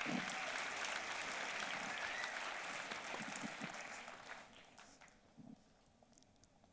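Audience applauding, the clapping dying away after about four and a half seconds.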